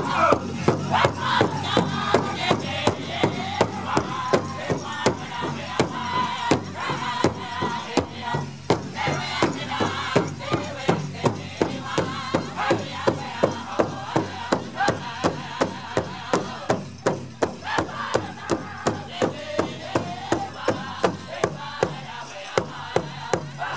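Powwow drum group playing a dance song: a large drum struck steadily about twice a second, with the singers' high voices over the beat.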